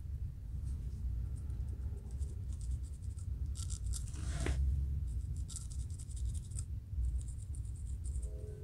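Fingernails and a fine-tooth metal comb scratching and scraping at a dry, flaky scalp in quick dry strokes, lifting dandruff, over a low steady hum. A few steady musical tones come in near the end.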